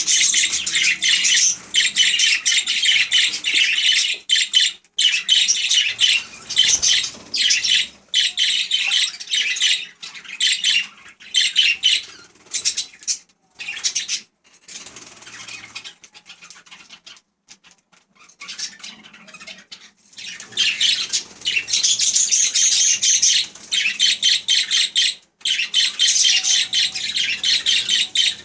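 Budgerigars chattering and warbling in rapid, continuous chirps, falling quieter for several seconds midway before picking up again.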